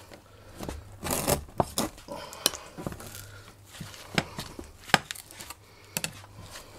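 Knife working through a young lamb's carcass on a cutting board, jointing a leg. There are scattered sharp clicks and knocks of the blade and the meat being moved, with a rougher tearing stretch about a second in.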